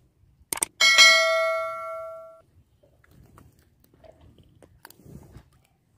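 A click followed by a single bell ding that rings and fades over about a second and a half: the notification-bell sound effect of a subscribe-button animation. Faint squelching of wet mud follows.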